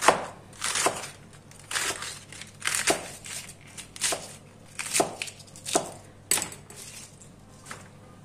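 Kitchen knife slicing through white cabbage onto a cutting board: a crisp crunch with each cut, about once a second, the cuts stopping near the end.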